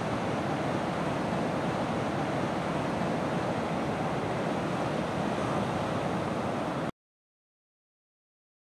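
Ocean surf from a hurricane swell breaking on a beach: a steady rushing wash of waves that cuts off abruptly about seven seconds in.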